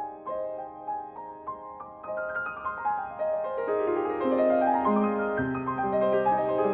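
Piano music: clear single notes that grow fuller and louder about halfway through, with a falling run of notes and low bass notes coming in near the end.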